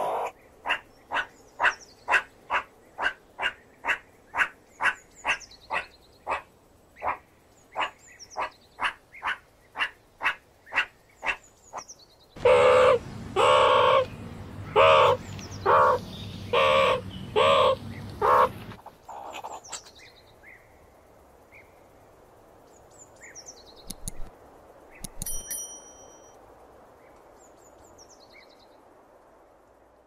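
Meerkat calling: a long run of short, repeated calls about two a second. For several seconds past the middle the calls get louder and come a little more slowly over a low hum. After that they thin out to sparse, faint chirps with some high falling chirps.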